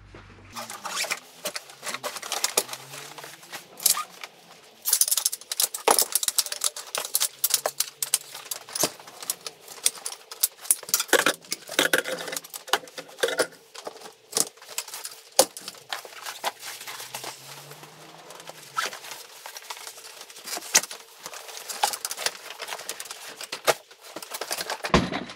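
Helinox-style collapsible camping chair being assembled: its jointed aluminium poles clack and rattle as they are unfolded and clicked into the frame, with the nylon seat fabric rustling as it is fitted onto the frame. Many sharp clicks and knocks come in quick, irregular succession.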